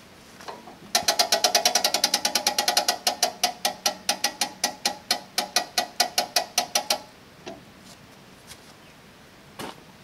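The sawmill head's height adjustment ratcheting as the blade is raised: a rapid run of sharp metallic clicks with a ringing tone for about six seconds, fast at first, then more widely spaced until it stops.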